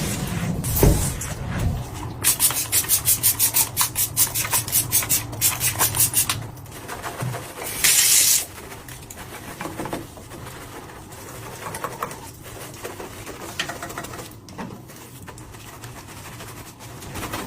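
Rapid rhythmic rubbing or scrubbing strokes, about four a second, then a short hiss a little after the middle, followed by quieter rustling and small handling clicks.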